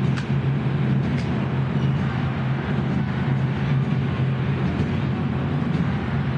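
Dense, echoing din of a packed protest crowd and drummers in a stone rotunda: a steady, loud roar with faint drum strikes heard through it.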